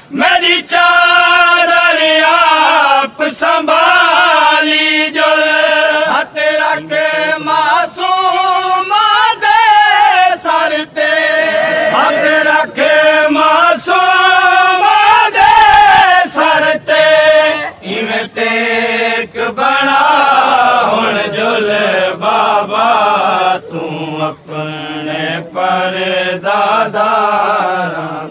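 Saraiki noha (Shia lament) chanted unaccompanied by a male voice in long, wavering held notes. It trails off at the very end.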